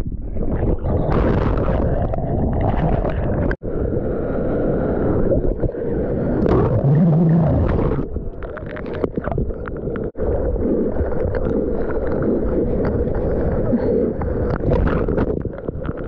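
Breaking surf and rushing whitewater heard close up from a camera in the water, with water washing over and around it. The sound drops out for an instant twice.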